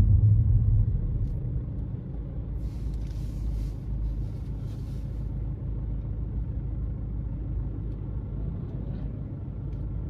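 Car's low road and engine rumble dying away over the first two seconds as it slows to a stop in queued traffic, then a steady low rumble while it waits. A few short hisses come about three to five seconds in.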